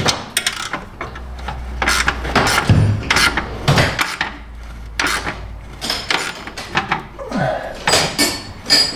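Irregular metallic clinks, knocks and scrapes of hands and tools working at an exhaust pipe joint under a car, fitting bolts through the pipe.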